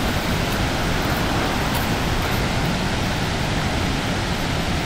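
Niagara's Horseshoe Falls: falling water rushing steadily, an even, unbroken noise.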